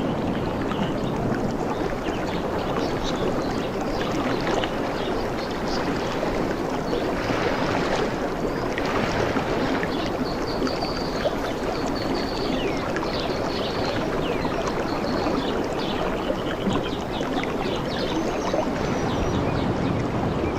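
Steady sound of sea water washing and lapping, with a few high bird chirps in the middle and again near the end.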